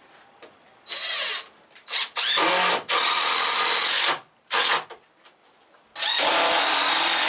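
Power drill running in several bursts of a second or so, its motor whine rising as each burst starts, typical of driving screws into pallet wood.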